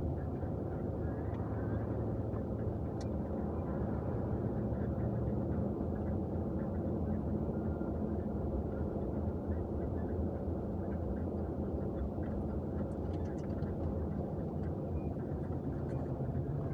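Jeep Wrangler Rubicon driving at steady speed, heard from inside the cabin: a low, even engine drone over road and tyre noise.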